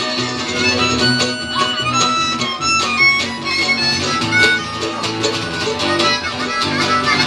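An old-time string band plays an instrumental passage with no singing. A harmonica and strummed acoustic guitars play under a higher string instrument that takes a quick-noted lead.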